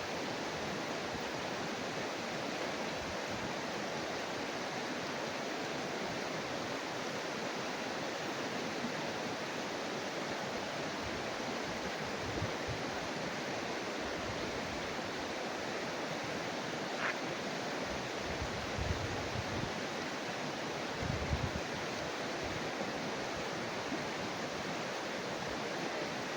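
Steady rushing of a fast-flowing river, high and strong after rain, with a few soft low thumps about three-quarters of the way through.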